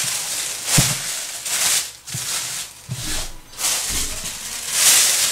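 Polythene cover rustling and crinkling as it is wrapped over the rolled dough, with a few soft thumps of hands on the counter.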